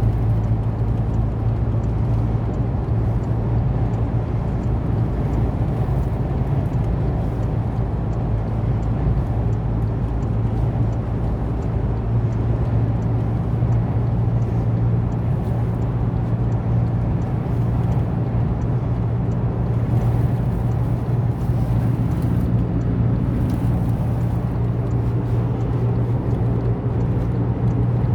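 A car driving at steady speed: a continuous low engine and road drone with a hum and tyre rumble that never changes.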